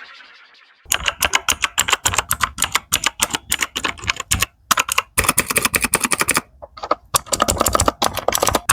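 Mechanical keyboard with clicky blue switches being typed on rapidly: fast runs of sharp key clicks that begin about a second in, with two brief pauses.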